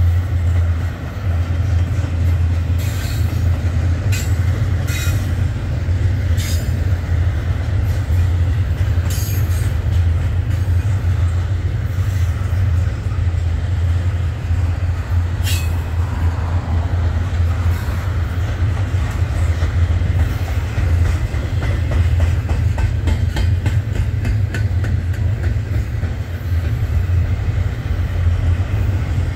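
Union Pacific double-stack intermodal freight train rolling past, a steady low rumble of the cars. Scattered sharp clanks and squeals come in the first half, and a quick run of wheel clicks over the rails comes in the last third.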